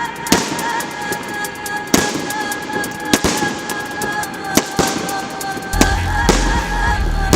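Fireworks going off: sharp bangs every second or so, with quick crackling between them. Music with sustained wavering tones plays over it, and a heavy bass comes in near the end.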